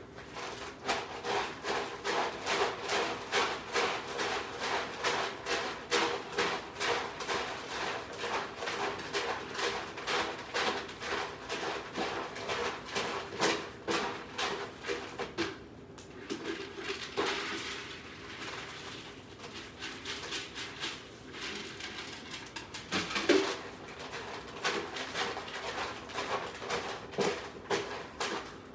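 Several cats eating from bowls and cans on a tile floor: fast, irregular chewing and crunching clicks, a few a second, over a steady low hum.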